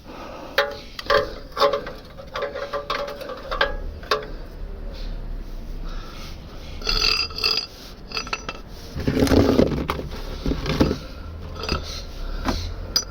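Clinks and knocks of metal against metal while a belt is worked around a stuck oil filter to wrench it loose, with a louder, lower sound lasting about two seconds around nine seconds in.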